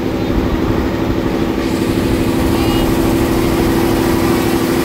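An old train running along the line, heard from the open window of a wooden carriage: a steady engine drone over a continuous low rumble from the running gear.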